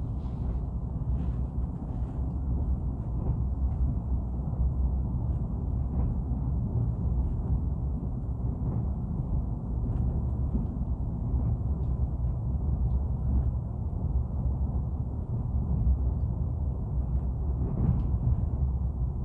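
Steady low rumbling noise from a white-noise ambience recording, even throughout, with faint scattered ticks above it.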